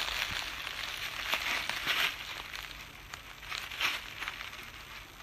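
Footsteps rustling and crunching through brush and dry leaves, in irregular bursts that grow fainter toward the end.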